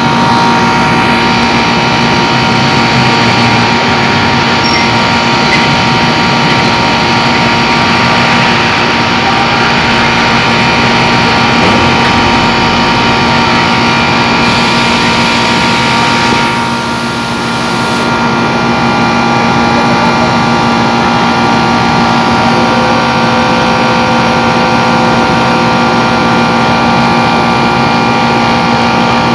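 Air conditioner's compressor and fan motor running steadily during refrigerant charging after a filter drier replacement: a loud, even hum with several steady tones.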